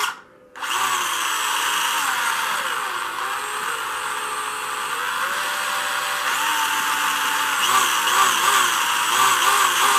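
Carrera Digital 132 Ford Mustang GTY slot car's small electric motor whining at speed while the car is held in place by hand with its wheels spinning. The pitch drops a couple of seconds in, rises again midway, and wavers near the end as the throttle changes. Its owner calls it really nice and really fast.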